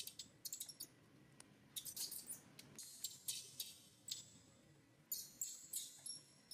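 Baby macaque crying in short, high-pitched squeals and chirps, coming in clusters about once a second: a hungry infant wanting to nurse.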